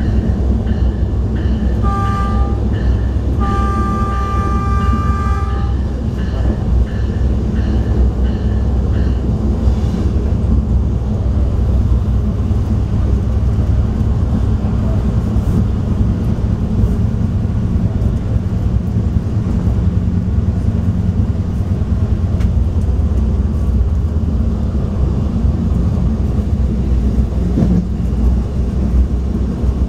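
Stadler GTW diesel light rail train running along the track, heard from inside the car as a steady low rumble. Its two-note horn sounds a short blast about two seconds in, then a longer blast of about two seconds.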